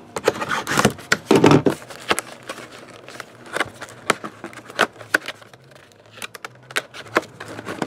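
A sealed cardboard trading-card box being handled and opened: crinkling with many scattered sharp clicks and taps.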